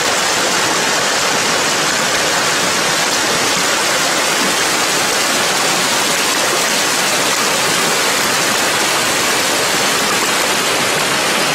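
Steady, loud rush of flowing floodwater, an even hiss with no breaks.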